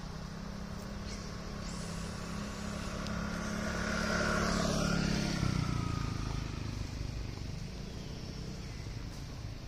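A motor vehicle driving past on the road, its engine getting louder to a peak about halfway through and dropping in pitch as it goes by.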